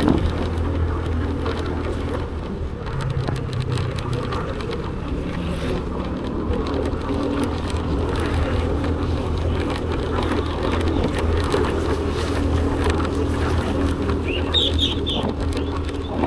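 Motorcycle engine running steadily while riding, with wind on the microphone.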